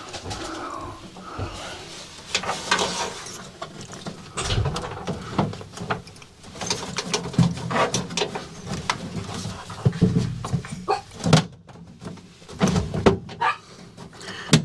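Irregular knocks, clunks and scraping as a heavy over-range microwave's metal case is shifted and jostled against its mounting bracket, being worked into place on one side.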